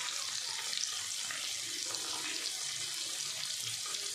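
Tomatoes and green and dried red chillies frying in oil in a kadai: a steady sizzle with faint scattered crackles.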